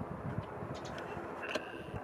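Steady background rumble of distant city traffic, with a low thump of wind on the microphone at the start. A brief high chirp comes about one and a half seconds in.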